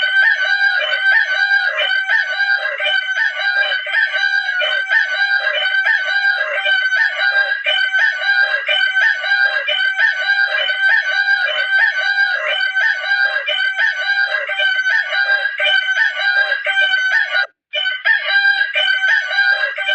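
Rooster crowing, many loud calls overlapping in a steady, evenly repeating stream, like a looped sound effect; it cuts out for a moment near the end.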